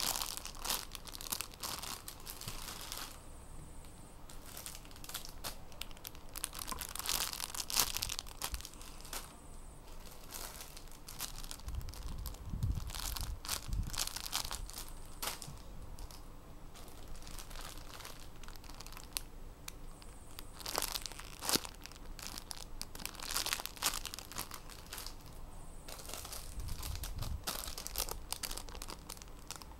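Clear plastic bags and wrappers crinkling in irregular bursts as they are handled and turned over, with a few dull low bumps from handling around the middle and near the end.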